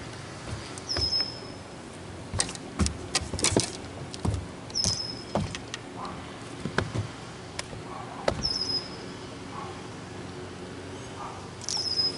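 Irregular knocks and thumps on a bass boat's deck as a freshly landed fish is handled. A short high chirp that slides down and then holds its pitch repeats four times, about every three to four seconds.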